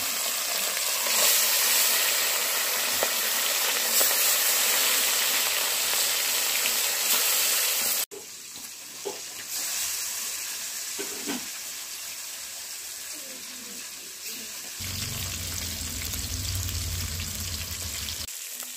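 Whole small carp sizzling steadily as they deep-fry in hot oil in a wok. The sizzle breaks off abruptly about eight seconds in and carries on quieter.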